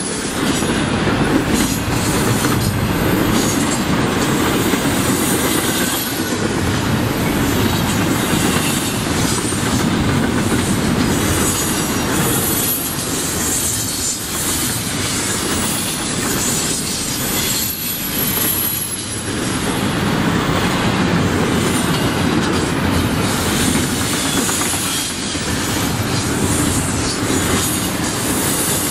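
Double-stack container train cars rolling past close by: a steady, loud rumble of steel wheels on rail with clicking over the rail joints. A thin, high-pitched wheel squeal comes and goes, most plainly around the middle.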